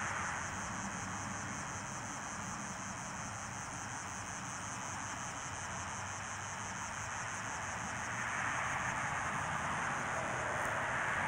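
Evening insects chirping in a steady, evenly pulsing high chorus, over a steady outdoor hiss that grows a little louder about eight seconds in.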